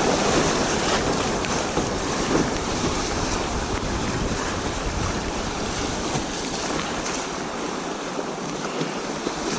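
Steady rush of river water around a kayak, with wind buffeting the microphone as a low rumble.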